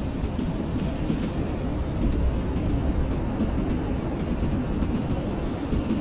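Blizzard wind blowing in a steady, deep rush with a fainter hiss above it.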